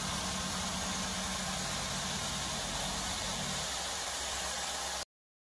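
CNC milling machine running a 2-inch five-flute indexable high-feed cutter through FX2 forge die steel: a steady hiss of cutting and coolant with a low hum underneath. It cuts off abruptly about five seconds in.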